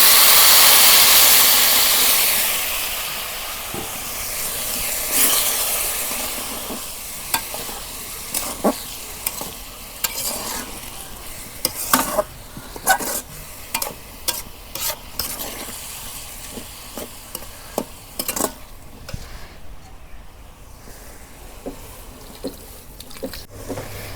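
Boiling water poured into a pot of hot oil-fried basmati rice, sizzling and hissing loudly at first and dying down over the first few seconds. After that a spoon stirs the rice, with scattered knocks and scrapes against the pot.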